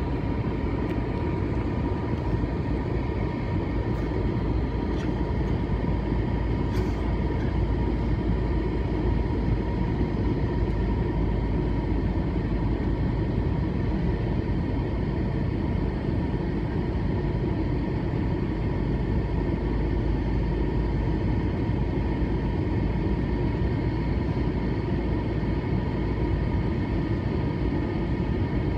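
Steady cabin noise of an Airbus A321-200 airliner on its approach to land: a low roar of airflow and the IAE V2500 turbofan engines, with a faint steady whine over it.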